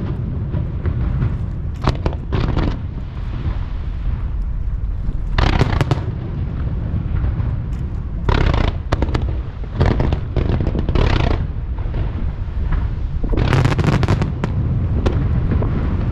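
Aerial fireworks bursting in rapid succession: a continuous low rumble of booms with several clusters of sharp crackling bursts, every two to three seconds.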